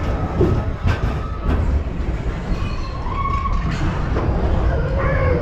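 Mine-train roller coaster cars rolling along the track, heard from on board: a steady low rumble with sharp clacks about one and one and a half seconds in, and a steady squealing tone that comes in near the end.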